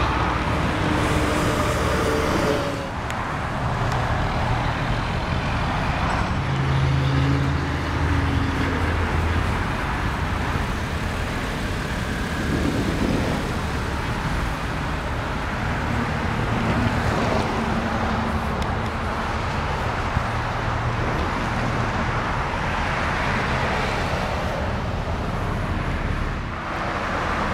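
Steady road traffic: a continuous rush of passing cars and trucks, with low engine hums that swell and fade as vehicles go by.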